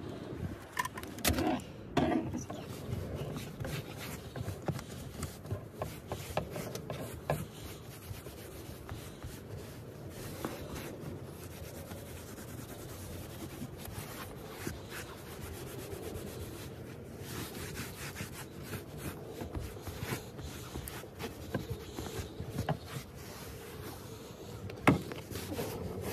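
A wipe being rubbed back and forth over a leather car seat, a continuous scrubbing and rubbing noise with scattered small knocks and one sharp knock near the end.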